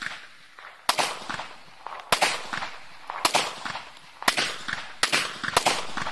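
Single shots from a locally made 30 bore (7.62×25mm Tokarev) pistol built in an M4 rifle shape. Six shots come about a second apart, the last two closer together, and each trails off in an echo.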